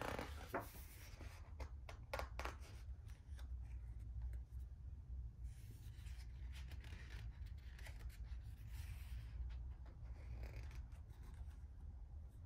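Pages of a hardback picture book being turned and handled: soft paper rustles, swishes and little scratchy clicks over a faint steady low hum.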